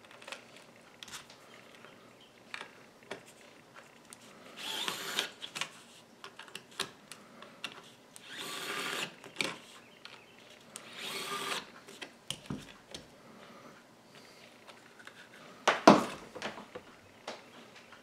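Small electric screwdriver driving the screw terminals of a wall switch's terminal block tight, in three short runs of about a second each. Light clicks come between the runs as the wires and plastic housing are handled, and a sharp knock sounds near the end.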